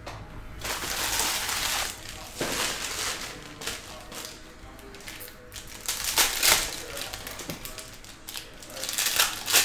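Foil wrappers of Panini Prizm basketball hobby packs crinkling and tearing as they are ripped open, in several bursts, along with cards being handled.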